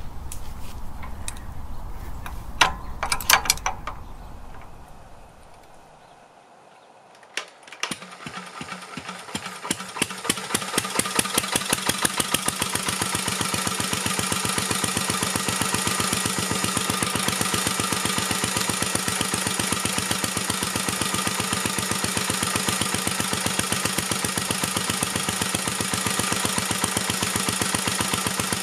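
A 1949 Petter A1 single-cylinder air-cooled stationary engine starting: a few knocks about three seconds in, then the engine fires about eight seconds in, its beats quickening over a few seconds as it runs up to speed. It then runs steadily with an even beat.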